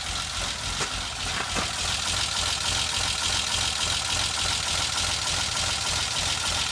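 BMW M20B20 straight-six engine idling steadily. It has a badly worn camshaft, the fault behind its poor running.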